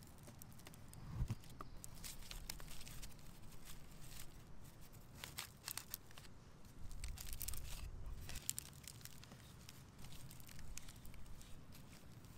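Twisted withy weavers crackling and rustling as they are threaded back through a twined weave and pulled tight around hazel rungs, in scattered short crackles.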